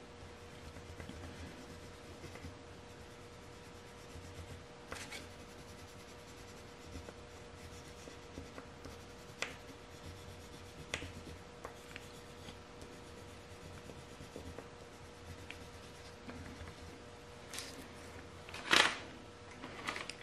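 Brown pencil crayon rubbing and scratching across paper, faint, as the squares of a waffle cone are coloured in. Light ticks fall here and there, and there is one louder knock near the end.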